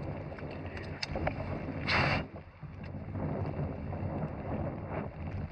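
Wind buffeting the microphone with a steady wash of rain and water noise on a small fishing boat. About two seconds in there is one brief, loud rush of noise.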